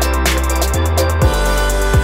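Background music with a steady beat: deep kick drum hits, sustained low bass notes and hi-hat.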